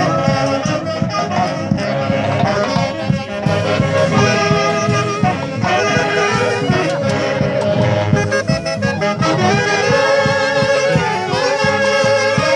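Live brass band led by saxophones playing a lively dance tune in unison melody lines over a steady drum beat.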